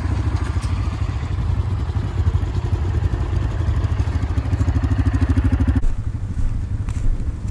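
ATV engine running close by, a steady low rumble, with the sound changing abruptly about six seconds in.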